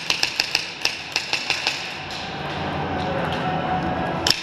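Airsoft gunfire: a rapid string of sharp cracks, about five a second, for the first second and a half, then a lull, then one loud crack near the end.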